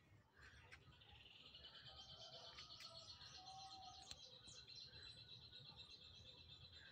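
Faint animal sound: a long, high, rapidly pulsing trill that starts about a second in and keeps going, with a few short chirps scattered through it.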